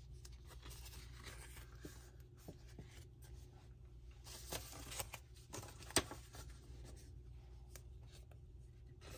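Handmade cardstock greeting cards and an envelope being handled: faint paper rustling with scattered small clicks, the sharpest about six seconds in.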